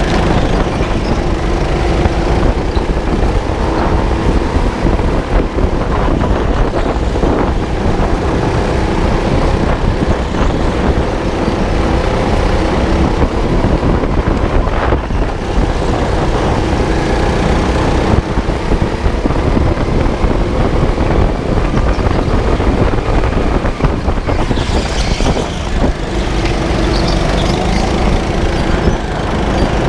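Rental go-kart running flat out around a track, its engine pitch wavering up and down through the corners under a steady heavy rumble.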